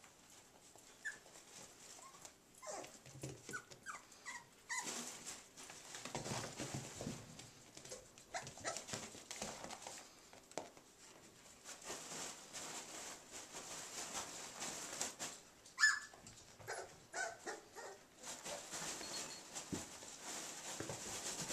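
Four-week-old puppies playing and wrestling with toys: scuffling and quick clicks, with a few short, high whimpers and yips. The loudest yip comes about 16 seconds in.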